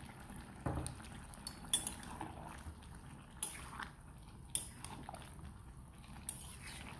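Metal spatula stirring a thick prawn and jackfruit curry in a metal kadai, clinking and scraping against the pan about five times at uneven intervals over a low, steady background.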